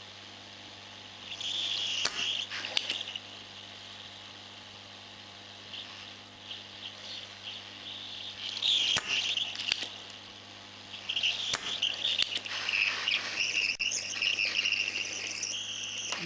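Hot air rework gun blowing on a phone circuit board to melt the solder left in the SIM holder's pin holes: a hiss that swells and fades several times, with a few sharp clicks.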